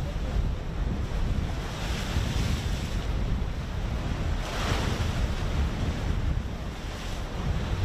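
Wind buffeting the microphone in a steady low rumble, over the wash of choppy sea waves, whose hiss swells about two seconds in and again near the middle.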